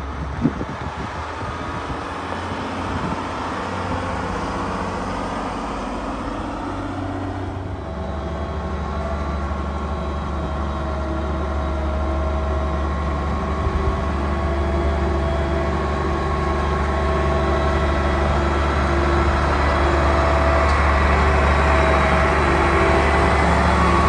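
Feed-mixer truck driving on a gravel road, its engine running steadily and getting louder as it approaches and comes alongside.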